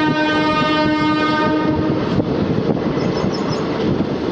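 Train horn sounding one long steady note that cuts off about two seconds in, over the rumble and clatter of the moving passenger train. After that only the train's running noise remains.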